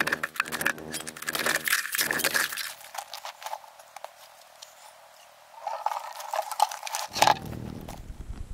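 Ice being chopped and broken with an ice chisel at an ice-fishing hole, then broken ice and slush crunching and clattering as the chips are cleared from the hole by hand, with a sharp knock about seven seconds in.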